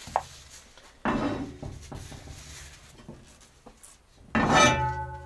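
Heavy cast iron kazan being handled on a wooden table: a scraping shuffle about a second in, then a loud clank about four seconds in that rings on with a bell-like tone for about a second.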